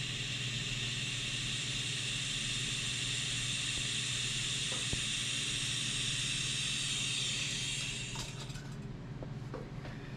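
Shop heater running with a steady hiss and low hum, then shutting off about eight seconds in, followed by a few light clicks.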